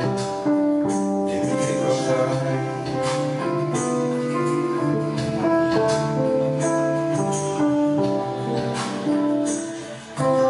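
Keyboard music: sustained chords and a melody over a steady tambourine-like percussion beat. The music drops briefly near the end.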